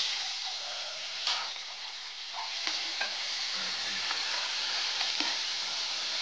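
Whole raw chicken sizzling in hot oil in a wok, a steady dense hiss of frying. A few sharp pops and clicks come through as a metal spatula presses the bird against the pan.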